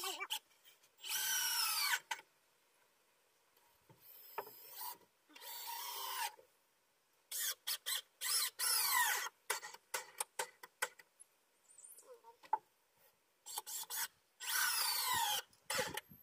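Cordless drill run in repeated bursts of about a second each, its motor pitch falling through each run as it loads up, with small clicks between runs. The drill's battery is running low.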